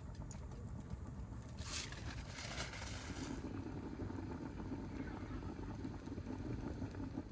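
Wood fire burning under a large open cauldron of boiling, steaming liquid, over a steady low rumble, with a brief hiss about two seconds in.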